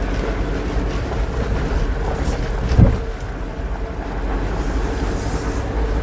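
Suzuki Jimny driving, its engine and road noise running as a steady low rumble with a faint steady hum. One short, loud low thud comes a little before three seconds in.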